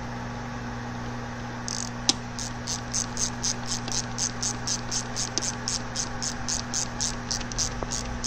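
Socket ratchet clicking in quick, even strokes, about four clicks a second, as it tightens a bolt of the bearing retainer plate on a transmission case; one sharper metal click about two seconds in as the work starts. A steady low hum runs underneath.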